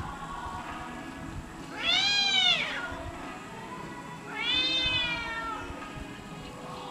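Domestic cats yowling in a face-to-face standoff: two drawn-out, rising-then-falling cries, each a little over a second long, about two and a half seconds apart. It is the threat call of two cats squaring up to fight.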